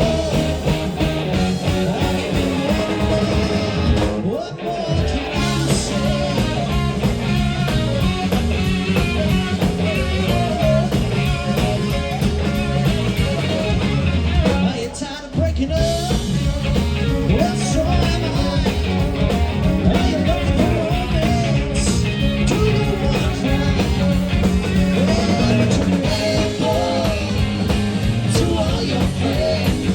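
Live rock band playing with a lead singer: guitar, drum kit and vocals. The music drops out briefly twice, about four and a half and fifteen seconds in.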